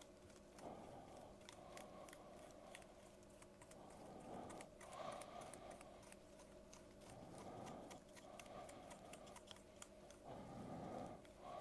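Near silence: faint brush strokes and light clicks as a paintbrush applies wood stain to small wooden model parts.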